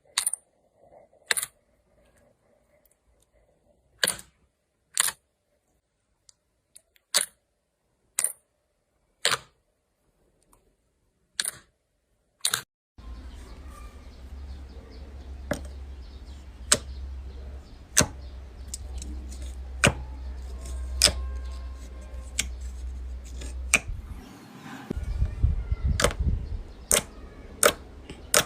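Slime being squeezed and poked, giving sharp separate pops and clicks roughly once a second. About halfway through, a steady low hum comes in under the clicks, which come somewhat more often.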